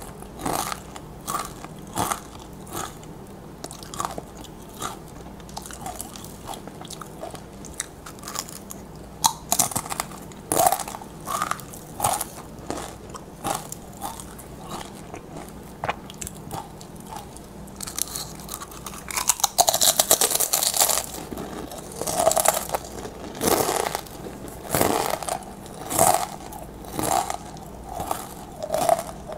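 Crisp tortilla chips being bitten and chewed, a sharp crunch with each bite and regular crunching while chewing. Dense, loud crunching comes about twenty seconds in.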